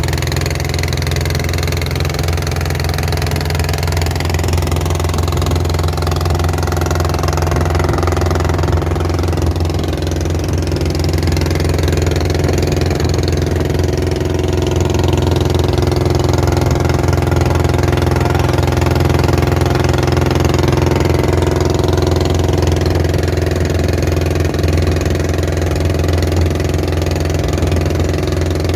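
Long-tail boat engine running steadily under way, a loud even drone that grows a little louder about halfway through.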